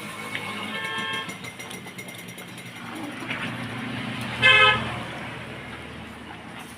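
A horn honks twice, a short faint toot about a second in and a loud toot just past halfway, over the low rumble of a running engine.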